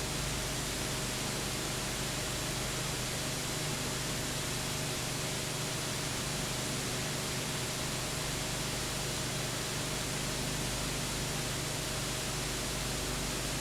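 Steady hiss with a low hum and no other sound: the empty soundtrack of a silent home-movie film transfer.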